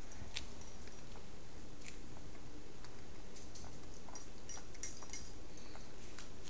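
Faint, irregular small clicks and mouth sounds over steady low room noise, as a baby eats from a spoon.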